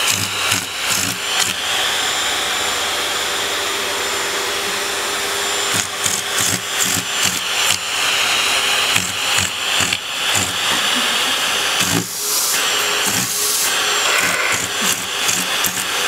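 Vacuum cleaner running with its hose nozzle pressed into a cat's fur: a steady motor whine and rushing suction noise. The suction sound flutters and chops irregularly as fur and paws partly block the nozzle.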